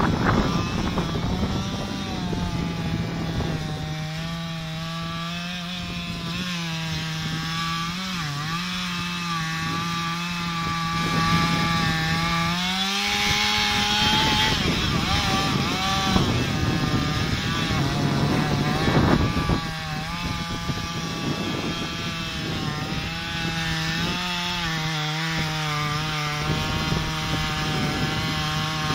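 Two-stroke chainsaw cutting into the base of a large poplar trunk. The engine is held under load, its pitch sagging and recovering as the chain bites, and it climbs briefly about halfway through.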